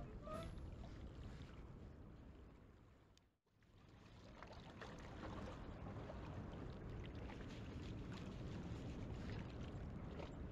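Steady low rumble of waterside harbor ambience, water and wind, with a few faint clicks. It fades out to silence about three seconds in, then returns at the same level.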